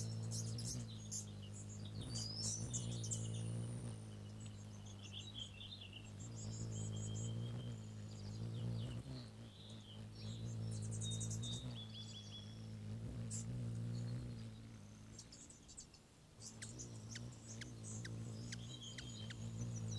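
Bird ambience: small birds chirping and giving short trills, with insect-like clicks toward the end, over a steady low hum that swells and eases every few seconds.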